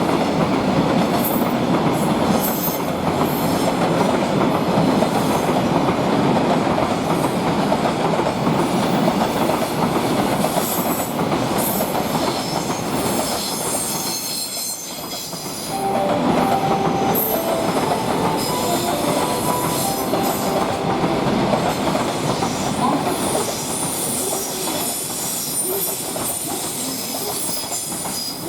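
Freight train wagons rolling past at close range, with a steady rumble and clatter of wheels over the rail joints. It dips briefly about halfway, and then high squealing tones from the wheels come through over the rumble.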